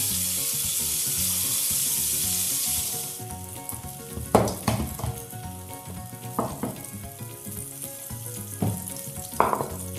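Chebureki frying in hot oil: a steady sizzle that cuts off about three seconds in. After it come a few scattered sharp knocks and taps.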